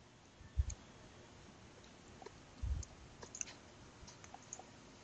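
Faint scattered clicks with two short, dull low thumps, about half a second and nearly three seconds in.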